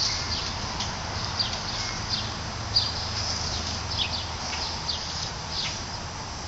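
Small birds chirping outdoors: many short, high chirps, some falling slightly in pitch, scattered irregularly over a low, steady rumble.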